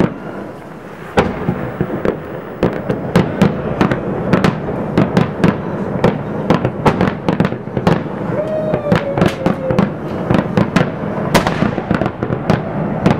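Aerial fireworks shells bursting in a rapid, dense series of sharp bangs and pops, starting about a second in and continuing without a break.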